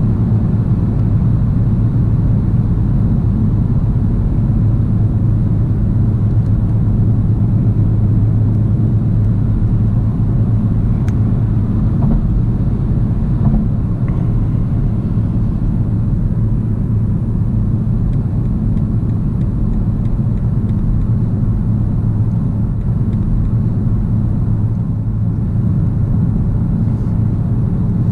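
Steady low cabin rumble of tyre and road noise with wind, from a BMW 530e xDrive plug-in hybrid sedan cruising at motorway speed, about 120–130 km/h.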